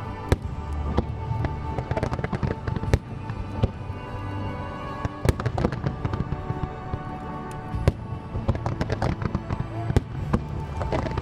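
Aerial fireworks shells bursting in rapid succession, with a handful of louder bangs standing out, over music played along with the show.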